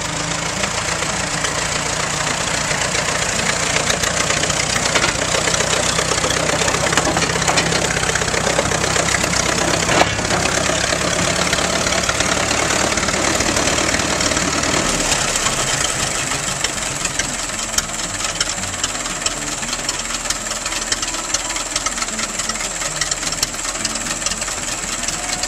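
1919 Fordson tractor's four-cylinder engine running steadily. About fifteen seconds in it becomes a little quieter and slower, with distinct separate knocks, and there is one sharp crack about ten seconds in.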